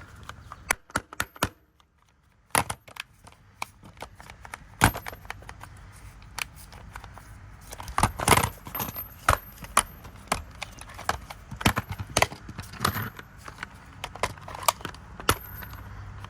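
Irregular clicks and knocks of a Ridgid 18V brushless impact wrench being handled, its trigger squeezed and the tool tapped, while the motor does not run: an intermittent electrical fault in the tool.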